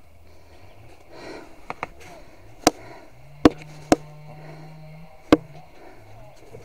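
Four sharp knocks at uneven intervals over a few seconds, with a faint low hum under them for about two seconds in the middle.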